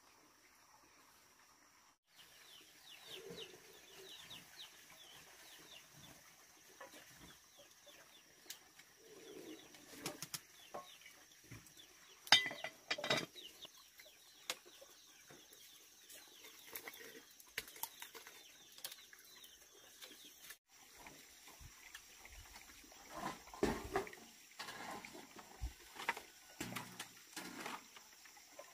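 Chickens clucking and chirping, with a steady high-pitched hum behind them and two loud sharp knocks about halfway through.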